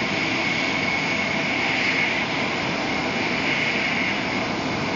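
Steady rushing noise inside the carriage of a Shinkansen bullet train running at speed, with a faint steady high whine.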